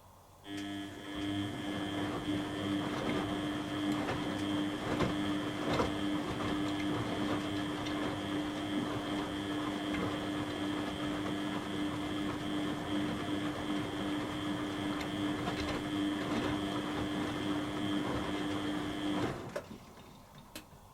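Beko WTB841R2W washing machine turning its drum in a wash tumble: a steady motor whine over a rough churning noise. It starts about half a second in and stops just before the end.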